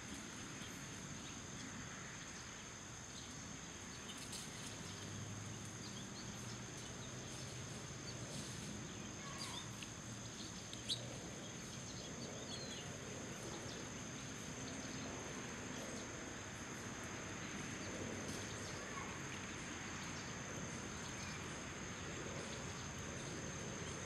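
Backyard outdoor ambience: a steady background with a continuous high thin whine, faint scattered bird chirps and a low hum, and one sharp click about eleven seconds in.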